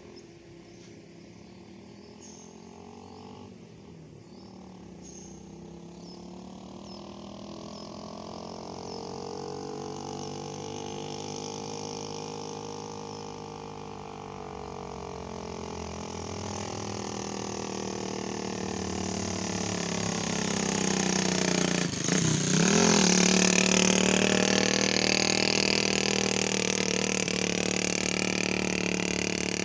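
Engine of a heavy vehicle running and growing steadily louder as it comes closer. Its pitch swells and falls, then dips sharply about two-thirds of the way in, where it is loudest.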